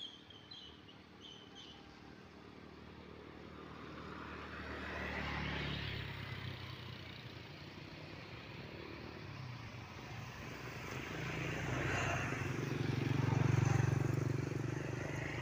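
Motor vehicles passing close by on a road, their engine and tyre noise swelling and fading twice: once about five to six seconds in, and louder near the end.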